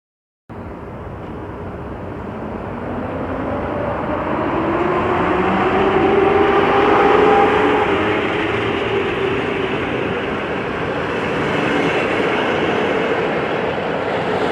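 A train running through a station, with continuous rail and wheel noise growing louder to a peak about halfway and staying loud, and a few gliding tones over it.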